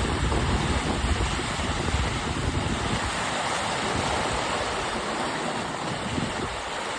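Steady rush of water streaming past a sailing catamaran's hulls, with gusty wind rumbling on the microphone.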